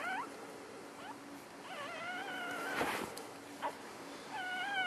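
Newborn puppies mewing: a high-pitched, wavering cry about two seconds in and a shorter falling cry near the end.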